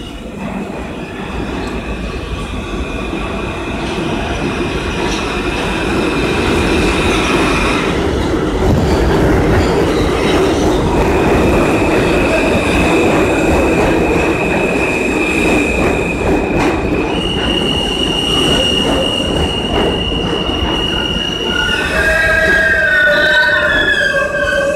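New York City subway train pulling into an underground station, its wheels rumbling on the rails and growing louder as it comes in. Steady high-pitched squealing rides over the rumble, shifting pitch partway through, and breaks into several wavering squeals near the end.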